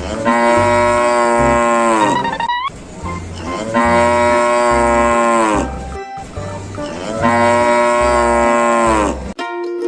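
Cow mooing three times, each moo long and drawn out for about two seconds with its pitch dropping at the end, over background music with a steady beat.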